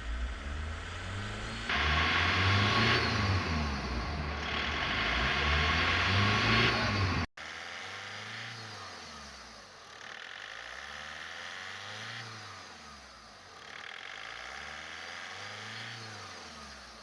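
Volkswagen Golf 6 1.6 TDI diesel engine (CAYC/CAYB) being revved up and down again and again. About seven seconds in the sound cuts abruptly and goes on quieter, with a few slower rev rises and falls.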